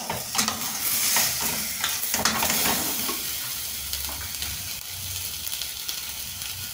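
Pork rib pieces sizzling steadily as they brown in a little oil in a stainless steel pot, with a spatula scraping and stirring them a few times in the first couple of seconds.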